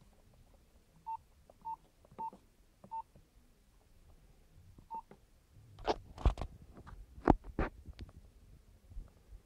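Nokia 1011 keypad beeping as a PIN is entered: four short single-pitch beeps about half a second apart, then a fifth about five seconds in as the code is confirmed. A handful of loud sharp clicks and knocks follow about six to eight seconds in.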